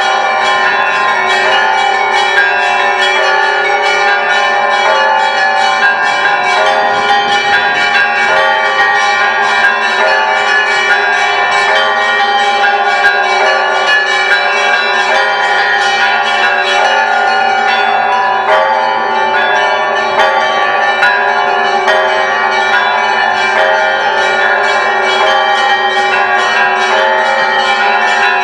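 Orthodox church bells of the Great Lavra Bell Tower ringing together in a continuous peal. Many bells of different pitches are struck in quick succession, and their tones overlap and hum on between strikes.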